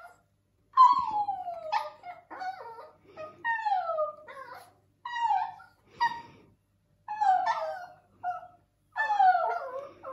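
Chihuahua howling in about six drawn-out calls, each sliding down in pitch, with a woman howling along with it.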